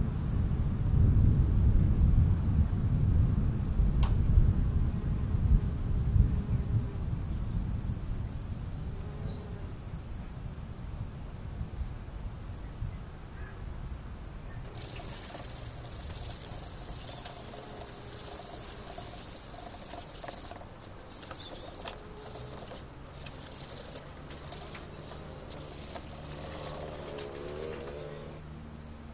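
Steady high trilling of crickets throughout. About halfway in, the rough hiss of sandpaper rubbed by hand on a motorcycle wheel hub starts, coming and going in strokes with short breaks towards the end. A low rumble fills the first few seconds.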